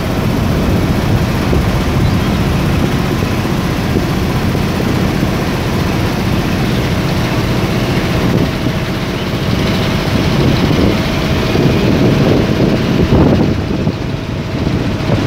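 A boat's motor running steadily, a loud, even drone, along with the rush of wind and water.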